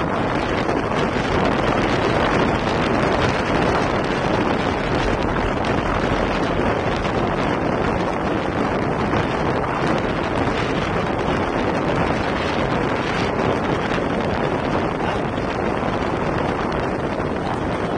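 Steady wind noise buffeting the microphone of a bike-mounted camera on a road bicycle travelling at about 40 km/h.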